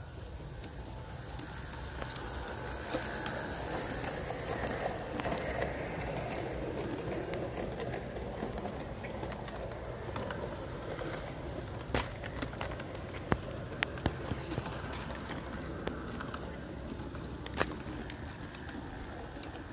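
Large-scale garden railway train rolling past on brass track: a steady rumble of wheels that swells about five seconds in, with a few sharp clicks in the second half.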